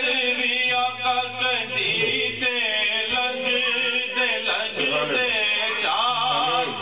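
A man singing a naat, devotional verse in praise of the Prophet, in long phrases whose pitch bends and wavers.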